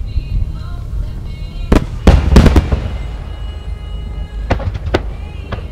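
Aerial fireworks shells bursting: a single bang, then a quick cluster of loud bangs about two seconds in, and a few separate bangs near the end, over a steady low rumble.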